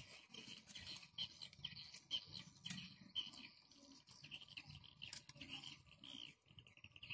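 A litter of puppies eating: a quick string of small chewing, licking and scraping clicks, with short high chirps scattered through.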